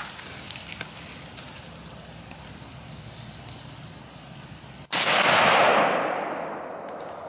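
A single shotgun blast about five seconds in, with its echo trailing off through the woods over about two seconds. Before it there is only a faint steady background hiss.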